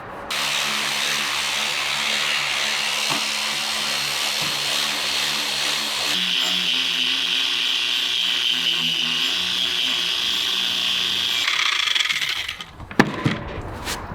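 Electric power sander running on the steel axe head: a steady motor hum under the hiss of abrasive on metal, its tone shifting about halfway through. It stops near the end, followed by a single sharp knock.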